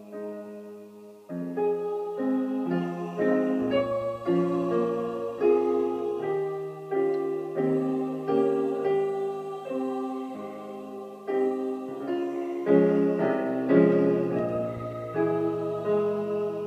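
Solo piano playing, chords under a melody line. A held chord fades away before a new phrase starts about a second in.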